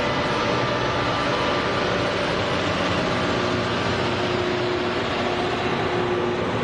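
Loram rail grinder train rolling past at close range, its diesel power units running in a loud, steady drone with several humming tones.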